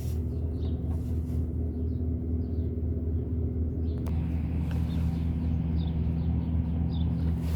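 Isuzu NPR truck engine idling steadily with an even low hum, and a single sharp click about four seconds in.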